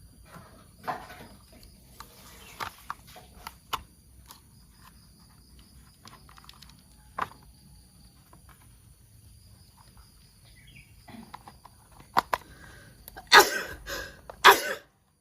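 Plastic toy parts and packaging being handled: scattered clicks, taps and rustles, with a few louder clatters near the end.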